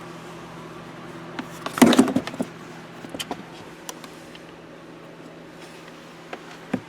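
2005 Honda Pilot's 3.5-litre V6 idling steadily, the engine whose rough, diesel-like idle is logged as running-rich codes P0172 and P0175. A short burst of clatter and rustling about two seconds in, then a few light clicks.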